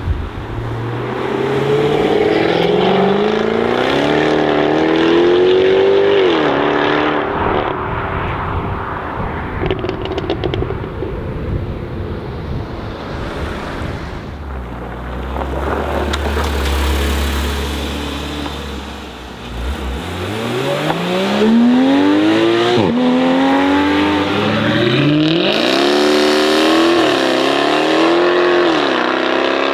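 Jaguar F-Type's supercharged 5.0-litre V8 under hard acceleration, its note climbing steeply and dropping back at each upshift. After a lull with a low steady rumble, a second full-throttle pull starts about two-thirds in and climbs through several quick upshifts.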